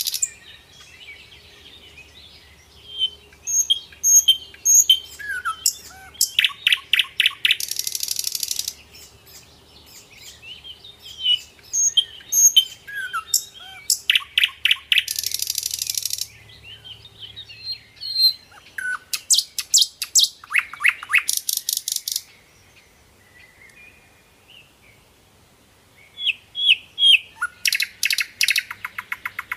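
Birds chirping, with short high calls and, every few seconds, bursts of a very fast trill lasting one to two seconds.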